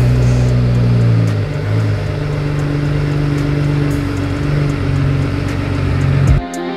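BMW B58 turbocharged inline-six idling steadily with the automatic transmission in gear and the wheels off the ground, the engine note dipping slightly about a second and a half in. This is how the fresh fluid is cycled through the gearbox after a refill. The engine sound cuts off suddenly near the end.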